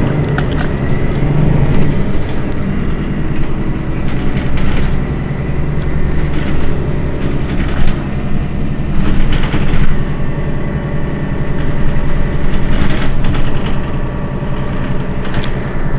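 Mercedes-Benz Citaro city bus's diesel engine idling at a stop: a steady low hum, with a few brief knocks over it.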